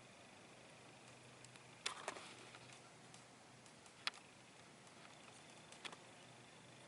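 Near silence with a few faint, sharp clicks of small tools and parts being handled: a double click about two seconds in, another about four seconds in, and a lighter one near the end.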